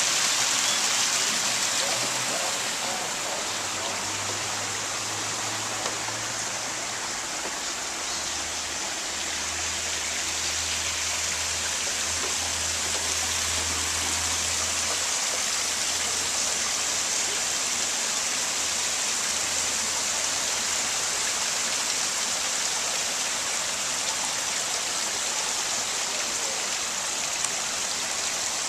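Steady rush of falling water from a waterfall, an even hiss with no breaks, with a faint low hum under it for the first half.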